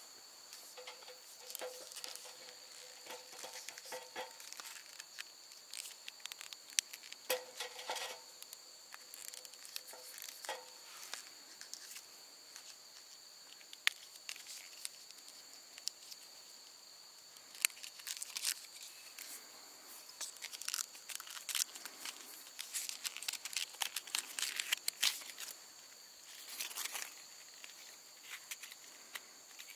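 Insects chirring steadily, overlaid by intermittent crinkling, rustling and clicking from gear being handled, busiest in the second half.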